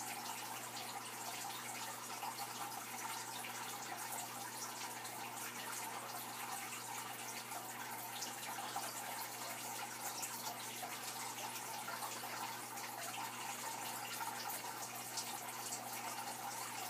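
Aquarium water trickling and splashing steadily, with small drips and a steady low hum underneath.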